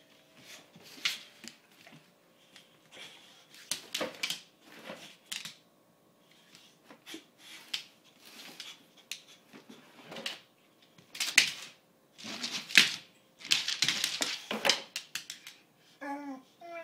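Irregular clicks, taps and scuffs of a dog's claws on a tile floor and a cardboard shoebox being nosed and shoved about, getting busier and louder in the second half. A brief pitched call, like a voice or animal cry, near the end.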